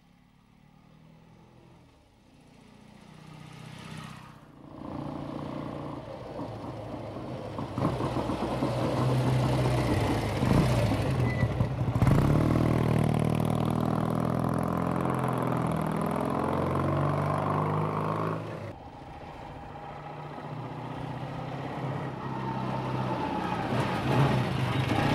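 Classic BSA motorcycle engines running as the bikes ride past one after another. The sound starts faint, builds, and changes suddenly a few times as one bike gives way to the next. It is loudest from a motorcycle and sidecar outfit in the middle.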